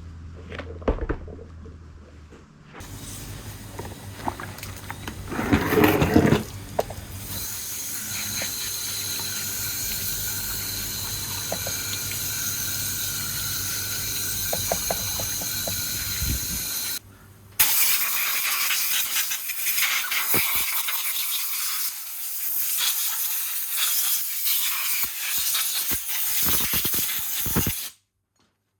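Water running and splashing steadily as a two-stroke motorcycle cylinder is washed with warm water and detergent. The rush breaks off briefly past the middle and cuts off suddenly near the end.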